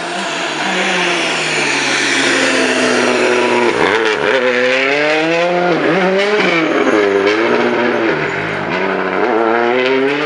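Hyundai i20 WRC rally car's turbocharged four-cylinder engine at high revs, growing louder over the first few seconds as it approaches, then the revs dip and climb repeatedly as the driver comes on and off the throttle through a hairpin, with scattered sharp cracks.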